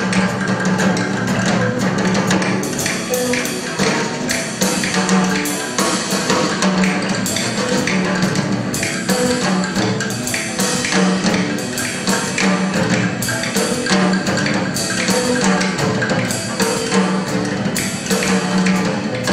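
Live band music with hand percussion to the fore: a tambourine, wood blocks and wooden sticks tapping a busy, steady rhythm over electric guitar and drums, with a repeating low note line underneath.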